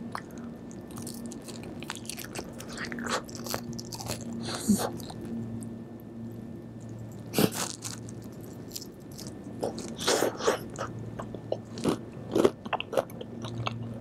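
Close-up chewing and biting of crispy karaage fried chicken: irregular crunches, some louder than others, over a faint steady low hum.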